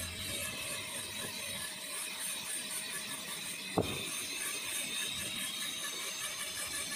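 Dental high-speed drill running steadily with a high whine as its bur grinds down the chewing surface of a molar, with a single sharp click about four seconds in.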